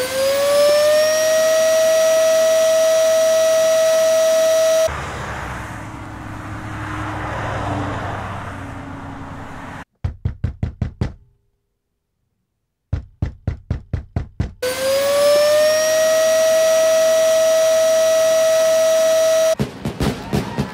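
Vacuum cleaner switched on, its motor whine rising and then holding steady for about five seconds. Then a vehicle passes with a swell of road noise, followed by two bursts of fast door knocking, about five knocks a second, separated by a brief silence. Then the vacuum cleaner starts up again, and a few sharp pops come at the very end.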